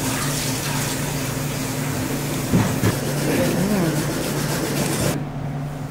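Sushi-counter restaurant background: a steady hiss with a low hum and faint voices a little past the middle. The hiss cuts off near the end.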